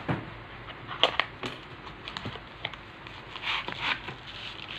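Hands handling cardboard packing and plastic bubble wrap: scattered light taps and clicks, then a rustle of plastic near the end.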